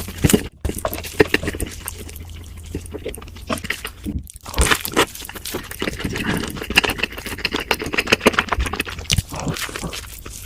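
Close, loud crunching and chewing of crispy fried food, a dense run of sharp crackles with a couple of short pauses.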